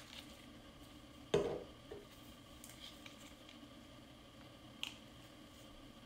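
A small plastic dropper bottle set down on a wooden table with one sharp knock, followed by a softer knock and a faint click as gloved hands handle the pigment bottles.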